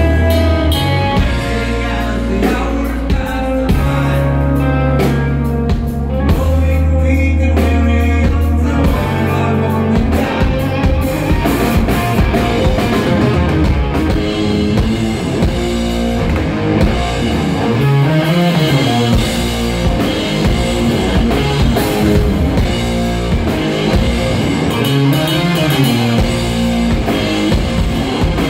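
A hard rock band playing live through a PA: electric guitars, bass and a drum kit. Long held low notes open it, and about nine seconds in it turns into a busier, driving riff with the drums hitting throughout.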